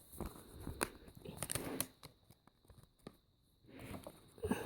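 Light handling noises of a LEGO set's instruction booklet and packaging: scattered sharp clicks and soft rustles, with a quieter stretch in the middle.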